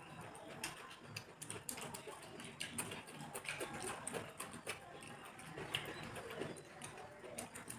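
Close-up eating sounds: wet chewing, lip smacks and small clicks as two people eat chicken biryani by hand, fingers working the rice on their plates.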